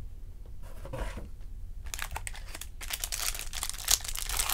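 Foil trading-card pack wrapper crinkling and tearing as it is opened: a brief rustle, then a dense crackle from about two seconds in.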